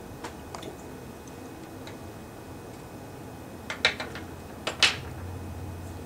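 Small plastic parts of a disassembled refrigerator timer clicking and tapping as they are handled and set down on a wooden tabletop. There are a few faint ticks at first, then sharper clacks about four and five seconds in.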